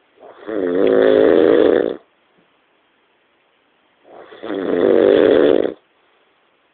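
A person snoring loudly: two long, rasping snores about four seconds apart, each lasting about a second and a half, with quiet breathing gaps between them.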